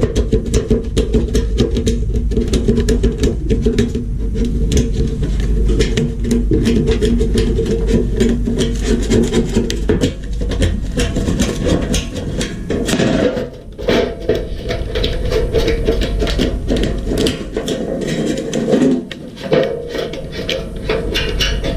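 Continuous rough rasping and scraping with dense fine crackle, changing in texture about ten and thirteen seconds in, with brief drops near fourteen and nineteen seconds.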